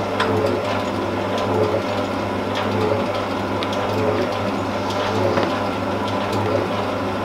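Metal shaping machine running: a steady motor hum with a regular knock from the ram's stroke about once a second as the tool cleans up a small part held in the vise.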